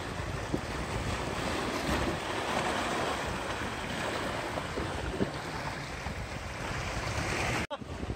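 Sea waves washing and breaking against shoreline rocks, with wind buffeting the microphone; the sound cuts off abruptly near the end.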